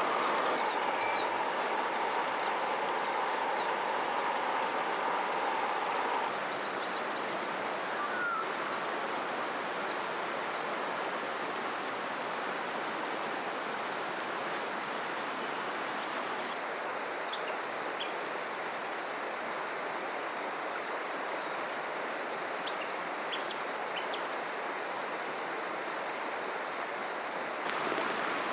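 A river flowing steadily, with a few short bird chirps a few seconds in. A steady hum sits over the water for the first six seconds and cuts off suddenly.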